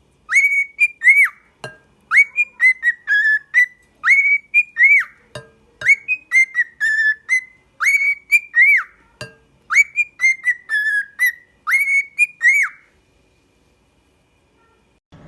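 A parrot whistling a short tune over and over: clear, high notes that swoop up and down, in phrases repeated several times with brief gaps and a few sharp clicks between them. The whistling stops about 13 seconds in.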